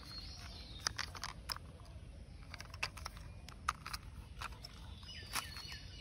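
Faint scattered clicks and taps from a small toy excavator being handled and turned over in the hands, about six in all. Quiet outdoor background with a couple of faint bird chirps, one near the start and one about five seconds in.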